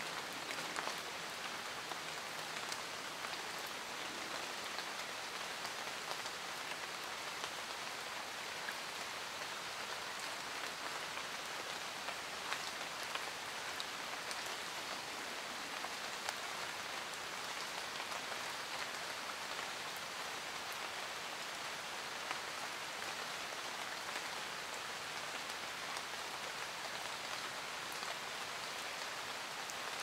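Steady rain falling on leaves: an even patter with scattered sharper drop hits close by.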